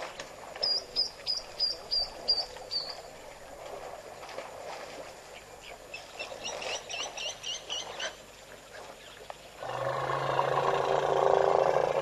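A bird calls twice in quick runs of about seven high chirped notes. Near the end, an African elephant gives a loud, long call that is held steadily for several seconds.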